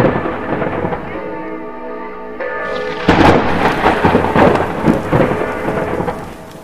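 Thunderstorm sound effect of thunder and rain under the closing titles, with a held musical chord that comes through between about one and three seconds in. The storm comes back loud, then fades out near the end.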